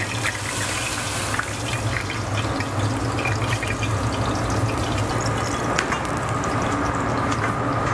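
Beef and chicken stock poured from a plastic container into a stainless steel saucepan of lamb shanks and vegetables, the liquid splashing as the pot fills. A steady low hum runs underneath.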